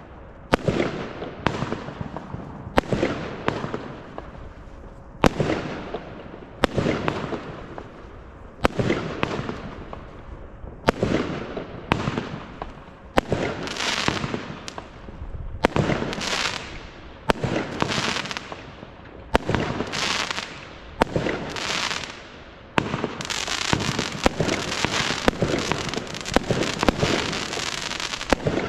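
Glittering Heights firework firing shot after shot, about one a second. Each shot is a sharp launch report followed by a fading hiss and crackle from its rising tail. In the last few seconds the shots run together into a continuous crackle.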